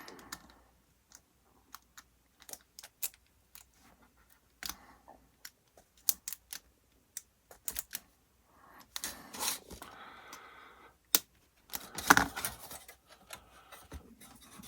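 Scattered sharp clicks and taps of a hobby knife working thick photo-etched metal parts off their fret on a cutting block. Short scraping sounds come about nine and about twelve seconds in. The photo-etch is thick and reluctant to come off.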